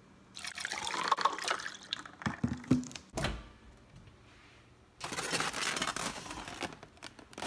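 Cranberry juice poured from a plastic bottle into a plastic cup, the pour rising slightly in pitch, followed by a few knocks of the bottle and cup. A few seconds later, a rustling scrape as a foam takeout container is slid out of the microwave.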